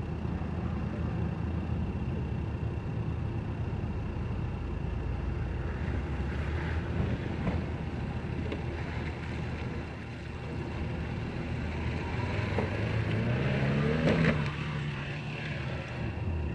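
Suzuki Jimny's engine pulling steadily as it drives over rough, muddy off-road ground. About two-thirds of the way through it revs up in a rising whine, is loudest at the peak, then drops back.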